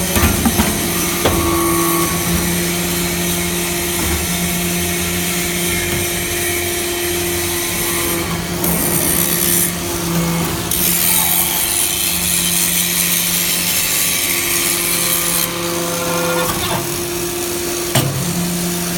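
Briquetting press for metal chips running: a steady machine hum, with a loud high hiss for several seconds around the middle.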